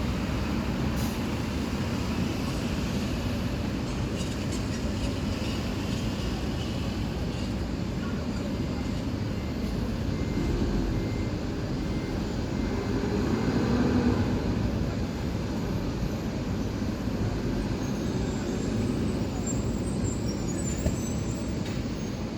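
City bus running, a steady low engine and road rumble, with the engine pitch rising and falling for a few seconds around the middle.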